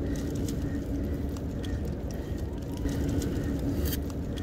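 A bird calling over a steady low outdoor rumble, with a few faint clicks.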